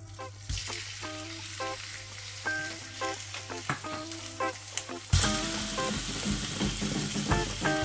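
Raw beef burger patties sizzling as they hit hot oil in a frying pan. The sizzle starts as the first patty goes in and gets much louder about five seconds in, when the second patty is added.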